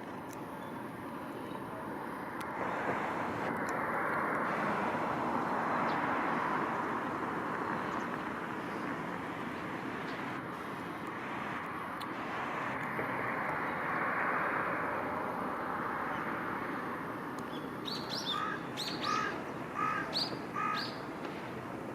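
Steady rushing background noise that swells and fades, with a bird giving a quick series of about five short calls near the end.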